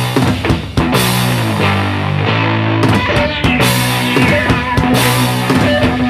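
Background rock music with a drum kit beat and held chords.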